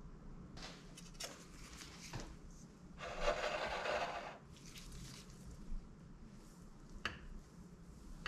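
Plate and knife handling on a kitchen countertop: a few light knocks, a scraping rub lasting about a second from about three seconds in, and a sharp click near the end as the knife meets the plate.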